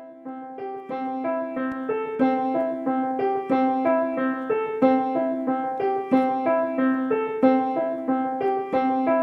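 Background music: a piano-like keyboard tune of separate, evenly paced notes over a repeated low note, fading in at the start.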